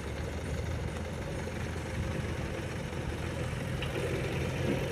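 Diesel engines of heavy earth-moving machinery running steadily, a low even drone.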